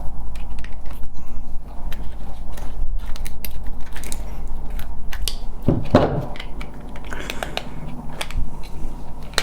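The plastic housing of a wireless car charger clicking and cracking as it is prised and forced apart by hand. There are irregular sharp snaps throughout, with a denser burst about six seconds in.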